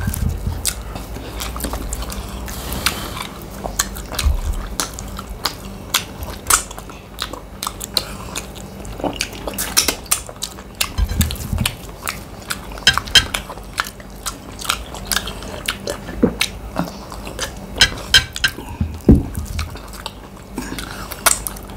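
People chewing and biting quickly through a meal, with many small clicks and knocks of dishes or utensils.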